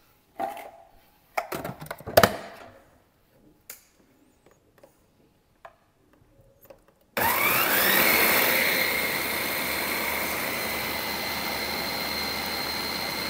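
A few sharp knocks and clicks of handling, then about seven seconds in a blender starts suddenly with a rising whine and runs steadily, grinding dried sunflower seeds into flour.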